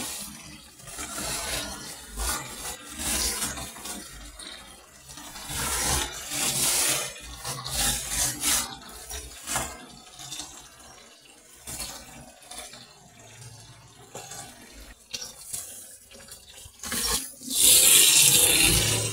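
Kitchen tap running into a plastic basin in a steel sink, with plastic bags crinkling as meat is unwrapped. The water gets louder near the end, as the meat is washed under it.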